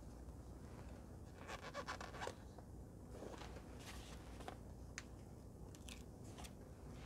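Faint crinkling and crackling of a paper sticker sheet being handled and a sticker worked off its backing, loudest about one and a half to two seconds in, followed by a few light clicks and taps.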